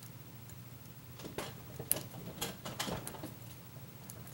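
Lock pick and tension wrench working the pins of a pin-tumbler challenge lock: a cluster of small clicks and scrapes through the middle, over a low steady hum.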